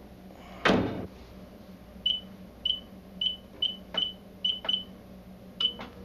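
Sanyo microwave oven's door shut with a bang under a second in, then eight short high keypad beeps with a few button clicks as the oven is set to run.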